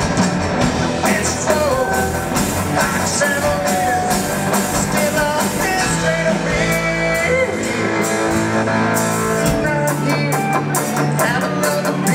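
Live band playing a rock song: electric and acoustic guitars, bass and drum kit, with a singer's voice over the top.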